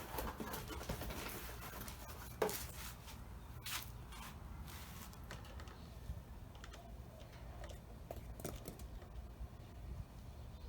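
Faint clicks and scraping of needle-nose pliers working at the rubber fuel hoses on a small engine's carburetor, with a sharper click about two and a half seconds in and another near four seconds.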